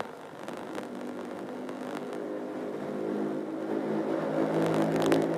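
Male qari's voice in melodic Quran recitation (tilawah): a long held, drawn-out note that comes in about a second in and swells steadily louder.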